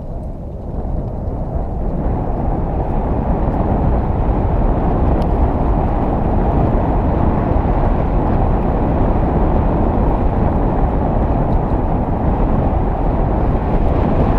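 Wind rushing over the microphone of a camera on a moving bicycle: a deep, steady rush that builds over the first couple of seconds as the bike picks up speed, then holds.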